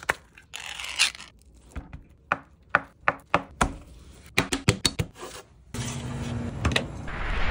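Ring-pull lid of a Spam can pulled open with a short tearing hiss and a click. Then a run of irregular sharp knocks from a knife chopping canned Spam on a wooden cutting board. Near the end a steady low hum sets in and swells.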